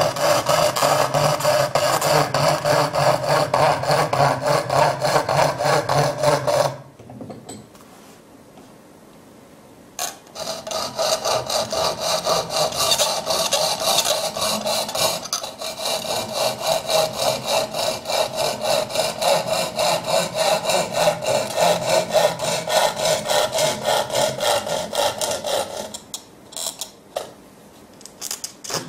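Coping saw cutting MDF board with quick, even back-and-forth strokes, about two a second. The sawing stops for about three seconds partway through, then resumes and stops again near the end.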